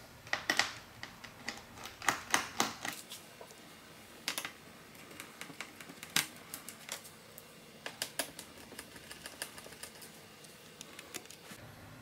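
Small Phillips screwdriver removing the screws from a laptop's bottom cover: irregular light clicks and ticks, some in quick clusters of two or three.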